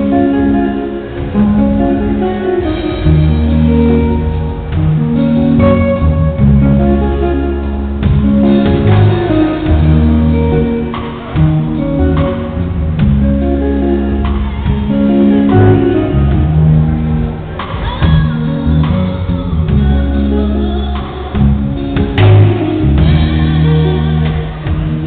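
Live band playing: a repeating electric bass line, electric guitar and drum kit, loud and continuous, with a woman singing into a microphone over it in parts.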